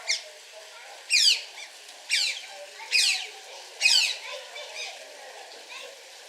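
Otter calling: a run of short, high-pitched squeals, each sliding down in pitch, about one a second. Five loud calls are followed by a fainter one.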